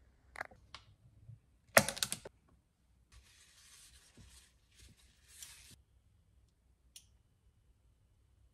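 A few clicks and a short loud clatter of kitchenware being handled, then a paper towel rubbing around the inside of a nonstick frying pan, a dry wiping noise lasting a couple of seconds with a brief pause, and a last small click.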